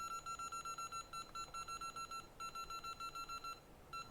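Rapid electronic beeping from bench equipment, about eight short high beeps a second, in runs broken by brief pauses a little after two seconds in and again near the end.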